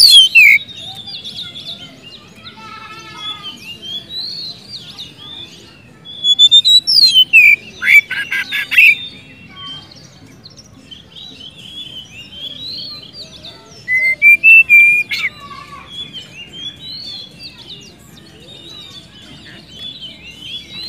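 Oriental magpie-robin singing: loud, clear whistled phrases that glide up and down, mixed with rapid trills. There are three loud bursts, at the start, again at about six to nine seconds in and about fourteen seconds in, with softer chattering song between. This is the full, loud song of a magpie-robin in top form.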